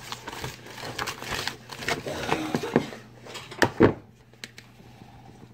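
Whisk stirring stiff cookie dough by hand in a mixing bowl: irregular scraping, knocking and clicking strokes against the bowl. There are two louder short pitched sounds about three and a half seconds in, and it goes quieter after about four seconds.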